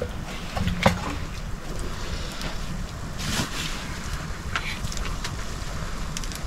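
Steady low wind rumble on the microphone, with a sharp clink about a second in and a brief rustle a little after the middle, from a meal being handled on steel plates.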